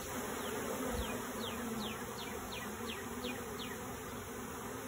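A honeybee swarm buzzing steadily as the bees settle onto and into a newly filled hive box.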